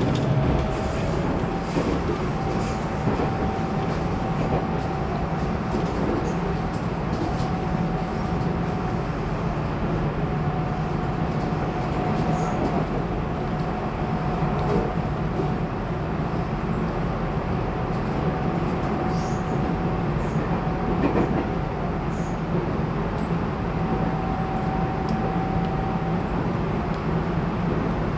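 Tobu 20400 series electric train heard from inside a motor car while running between stations: a steady rolling rumble of wheels on rail with a faint steady whine over it.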